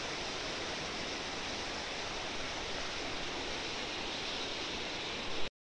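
Steady rushing of a mountain stream through a narrow rock gorge, which cuts off abruptly near the end.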